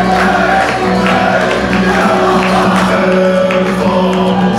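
Folk metal band playing live through a loud PA: amplified electric guitars and drums with voices singing.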